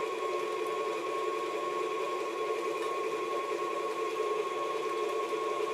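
KitchenAid tilt-head stand mixer running at a steady speed, its beater mixing cake mix and crushed pineapple into cupcake batter: an even motor hum with a constant whine.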